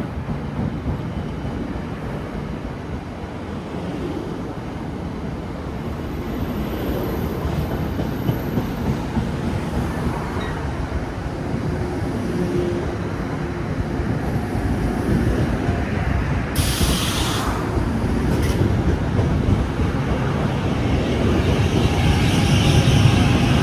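A passenger train running past on the rails, a steady rumble of wheels and cars that grows louder toward the end, with a brief hiss about seventeen seconds in.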